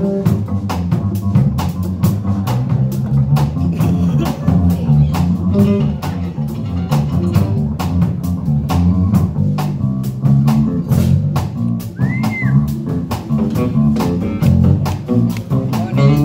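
Live band playing: acoustic and electric guitars over a drum kit keeping a steady beat, with a strong low bass line.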